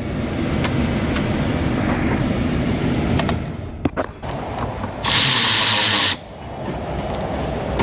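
A pickup truck's engine running with a steady low rumble, a few sharp clicks between three and four seconds in, then a loud one-second burst of hiss about five seconds in.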